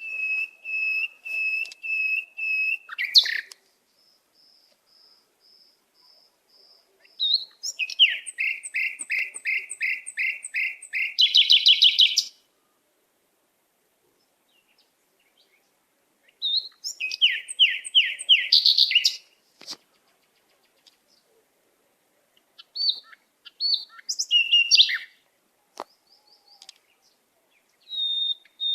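Songbirds singing: phrases of repeated clear whistled notes, some a steady series of even notes and others a quick run of falling notes that speeds up, each phrase separated by a few seconds' pause.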